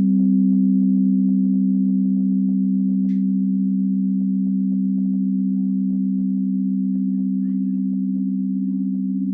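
Crystal singing bowls ringing on after being struck: a steady, fairly low chord of two close tones that slowly fades. A run of light ticks, about four a second, sits over the first few seconds, with a few more later.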